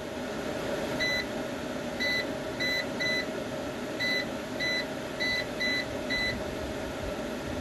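About nine short, high electronic beeps at uneven intervals, the key beeps of an EG4 6500EX inverter's front-panel buttons being pressed to scroll its display, over a steady hum.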